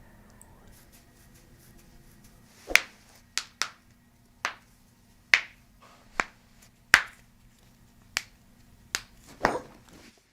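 About ten sharp clicks at uneven intervals during a chiropractic adjustment, starting a few seconds in, with the last ones coming close together near the end. A faint steady hum lies underneath.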